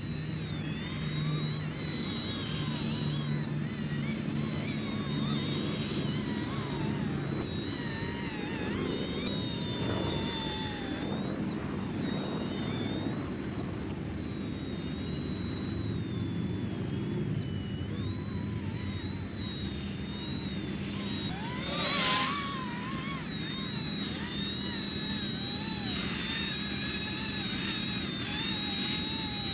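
ERA C159 remote-control helicopter in flight: a high motor and rotor whine whose pitch wavers up and down as the throttle changes, over a low rushing noise. About three quarters of the way through it briefly grows louder.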